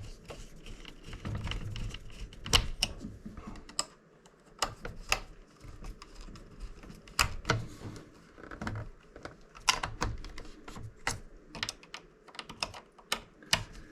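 Irregular small clicks and taps of a screwdriver and plastic parts as a replacement side-brush motor is seated and screwed into a Roomba 675's plastic underside.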